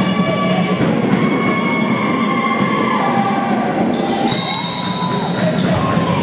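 Basketball game in a gym: steady crowd murmur, with sneakers squeaking on the hardwood court in short sliding squeals and a few sharp knocks near the end.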